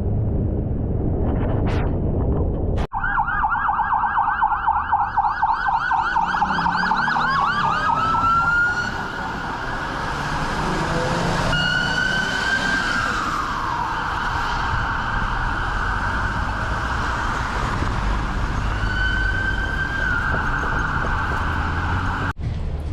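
Street traffic noise, then from about three seconds in an emergency vehicle siren: a fast yelp first, then a slow wail that rises, holds, falls and rises again.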